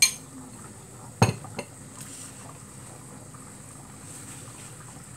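Fork and bowl clinking: a sharp clink at the start, a louder knock about a second in and a lighter one just after, over a low steady background.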